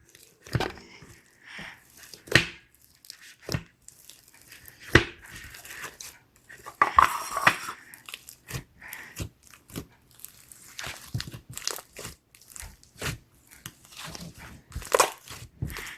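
Slime being squeezed and played with by hand, making irregular sticky crackles and pops, thickest about seven seconds in.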